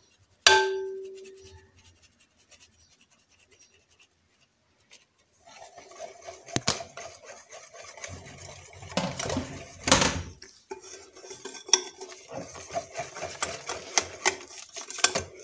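A knock on a glass mixing bowl about half a second in sets it ringing briefly. After a few quiet seconds, a wire whisk mixes flour into thick cocoa cake batter, scraping and clicking against the glass bowl with a few louder knocks.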